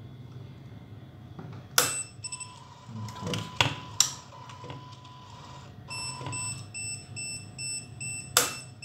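Optical fibre fusion splicer giving electronic beeps: a steady tone for about three seconds, then a run of short repeated beeps. Four sharp clicks, the loudest sounds, come as the fibre clamps and holders are snapped shut.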